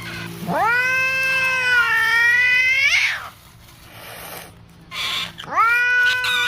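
Cat yowling in two long drawn-out calls: the first lasts about two and a half seconds and rises sharply in pitch before breaking off; the second starts near the end and is held.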